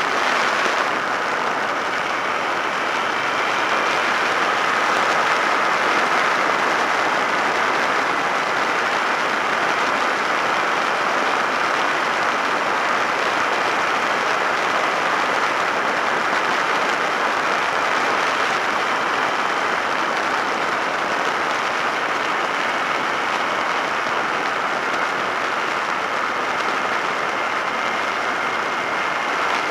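Steady wind rush over an action camera's microphone on a Suzuki SV650S at road speed, with a faint steady whine from the bike beneath it.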